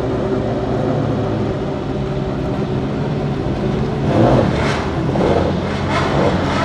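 Ferrari F40 LM's twin-turbo V8 running steadily, then revved about four seconds in, followed by three or four short, sharp throttle blips.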